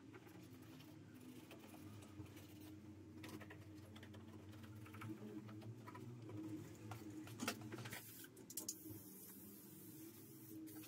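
Faint tapping and rubbing as a microfibre cloth wipes plastic engine parts, over a low steady hum. About two-thirds of the way in, an aerosol can of WD-40 starts a steady hiss of spray.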